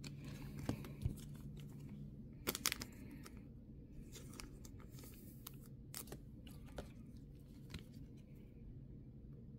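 Faint handling noises of trading cards and a clear plastic top loader: scattered light clicks, scrapes and rustles. The loudest cluster comes about two and a half seconds in.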